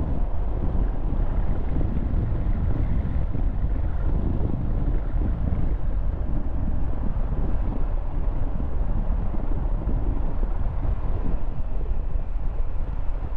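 Steady low wind rumble buffeting the microphone of a moving bicycle, with road traffic running underneath.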